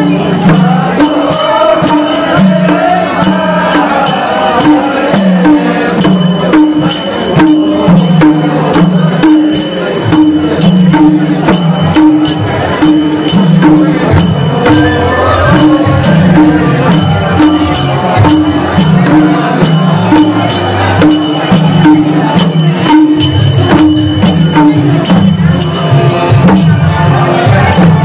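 Loud music with a steady, evenly repeating low beat and dense high percussion clicks, with a wavering melody line over it.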